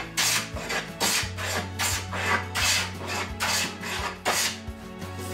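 Low-angle jack plane taking repeated cutting strokes along a walnut board, each stroke a rasping hiss of the blade lifting a shaving, about two strokes a second over a steady low hum.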